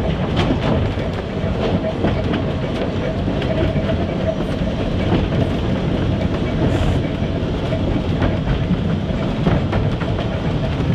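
Manx Electric Railway Vestibuled Saloon No.6, an electric tramcar, running along the line, heard from inside the car: a steady rumble of wheels on rail with scattered clicks and a faint steady hum.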